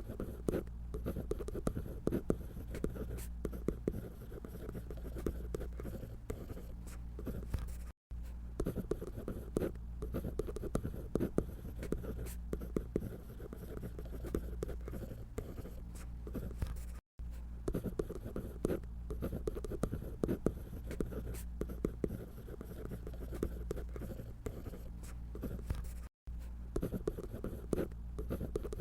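Drawing on paper by hand: a steady run of irregular scratchy strokes, with brief dropouts to silence three times.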